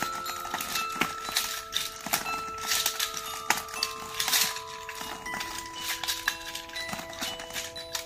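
Rubik's cube being turned, with rapid irregular plastic clicks and clacks of its layers, over soft background music of long held notes that change pitch every second or two.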